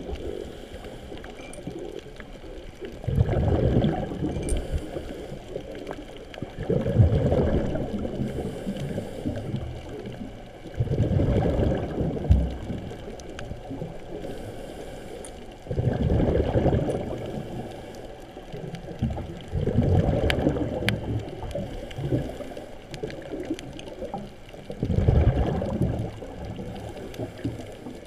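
Scuba diver breathing underwater, heard through a GoPro's waterproof housing: the exhaled bubbles from the regulator rumble in low bursts about every four to five seconds, six times, with quieter water noise in between.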